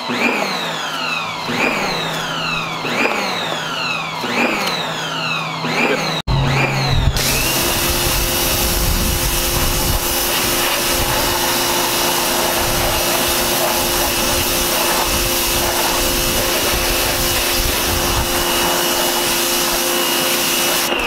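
A repeating falling whistle-like tone, about one every second and a half, then from about six seconds in an 1800 PSI electric pressure washer running steadily, its spray hissing as it rinses a car wheel.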